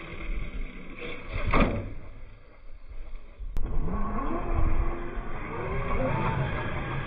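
Traxxas X-Maxx 8S RC monster truck: a single thud about a second and a half in as it lands from a jump. Later its brushless electric motor whines, rising in pitch several times as it accelerates on a gravel track, with tyre crunch beneath.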